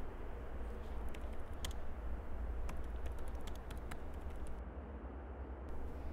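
Typing on a laptop keyboard: scattered, irregular key clicks over a steady low hum.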